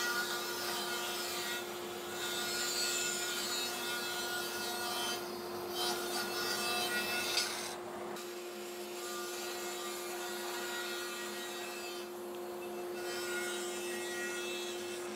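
A Grizzly G0513X 17-inch bandsaw is running with a steady hum while its blade resaws pine boards against the fence. The cutting noise eases briefly a few times between boards.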